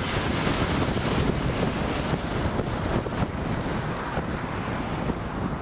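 Wind buffeting the camera microphone: a steady, rushing noise, heaviest in the low end.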